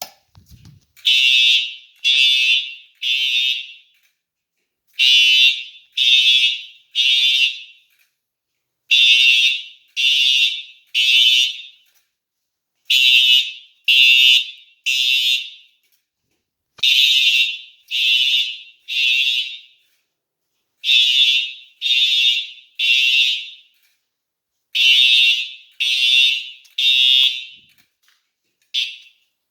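Two Simplex TrueAlert fire-alarm horn/strobes (4906-9127 and 4906-9128) sounding in sync in the temporal-three evacuation pattern: three horn blasts about a second apart, then a pause, with the cycle repeating every four seconds. The sound is super duper loud. Near the end a last blast is cut short as the horns are silenced.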